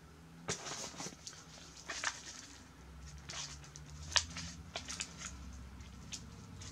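Gift packaging rustling and crinkling as it is handled, with scattered light clicks and one sharper click about four seconds in.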